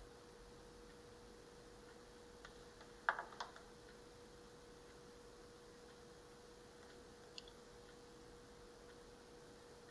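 Near silence with a faint steady hum. About three seconds in come two sharp clicks as the handheld infrared thermometer is moved away, and a tiny click follows later.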